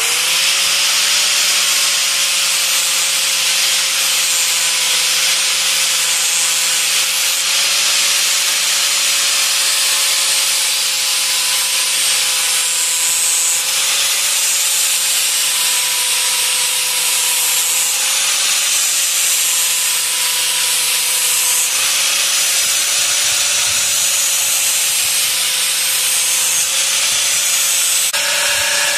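Angle grinder fitted with a flap disc spinning up at the start, then grinding back the dinged edge of a steel lawnmower blade to put a new edge on it. A steady high motor whine under a dense grinding hiss, the pitch wavering slightly as the disc bites.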